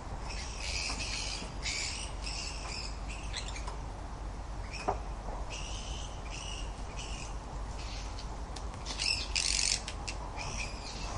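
Bird calls in several runs of short, repeated high notes, over a steady low rumble, with a single sharp click about five seconds in.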